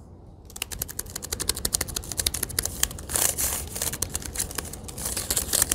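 Typing on a Jelly Comb ultra-thin aluminium wireless keyboard: a rapid run of soft, quiet key clicks, starting about half a second in.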